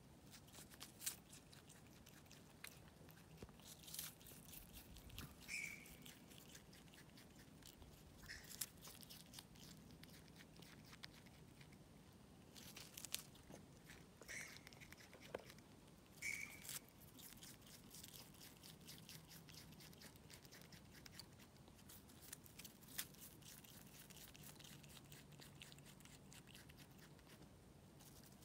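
Faint, crisp clicks of a ringtail possum chewing and biting into a flower's petals, with a few short high chirps now and then.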